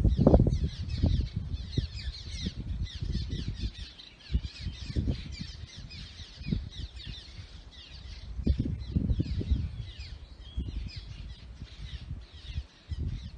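A flock of birds chirping and calling busily and without pause, over irregular low rumbling gusts that come and go.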